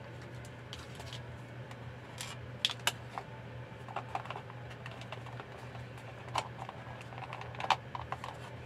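Scattered light plastic clicks and taps as the casing of a rechargeable LED emergency light is handled and pressed, over a steady low hum.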